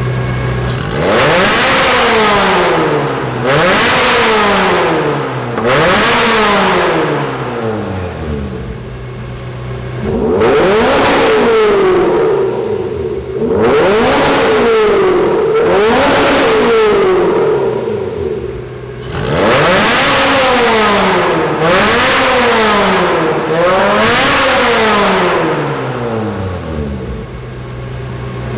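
Lotus sports cars with Larini aftermarket exhausts, their Toyota 1.8-litre four-cylinder engines revved from idle again and again, each blip rising and falling in pitch about every two seconds. From about ten to nineteen seconds a steady held engine note runs under the blips.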